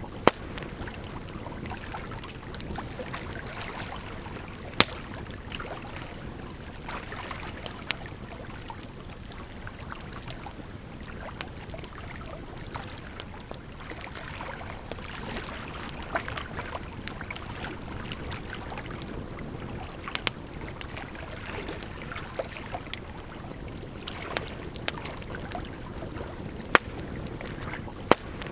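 Wood fire crackling, with a few loud sharp pops and many small crackles, over a steady rush of flowing water.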